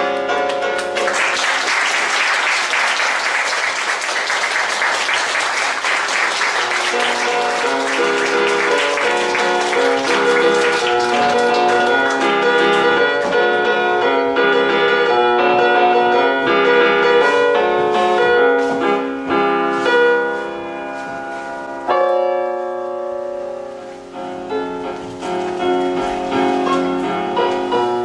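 Audience applauding over instrumental music with piano. The clapping starts about a second in and fades out about halfway through, and the music carries on alone.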